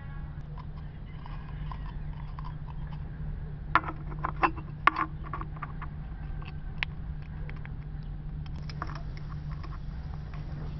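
Handling of an aluminium soda can and a screwed-on metal angle bracket: a few sharp metallic clicks and taps, several close together a little before the middle and one more a couple of seconds later, over a steady low hum.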